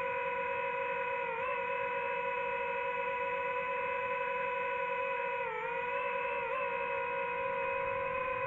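DJI FPV drone's motors and propellers whining at a steady pitch while it cruises, dipping briefly in pitch about a second and a half in and twice more near the middle as the throttle eases.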